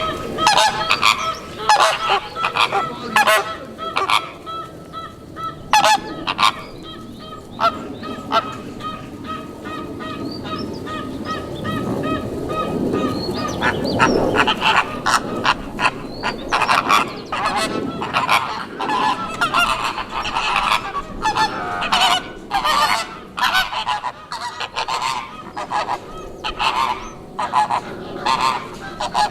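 A flock of flamingos honking, many short goose-like calls overlapping.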